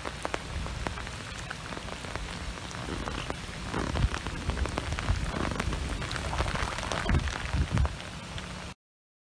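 Heavy rain falling on floodwater, a steady hiss dotted with the patter of individual drops, with a few short low thumps. The sound cuts off abruptly near the end.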